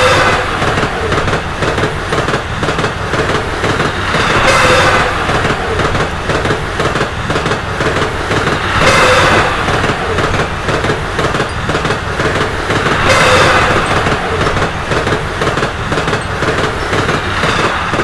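KiHa 120 diesel railcar train running past, its wheels clattering over the rail joints in a steady rattle that swells louder about every four to five seconds.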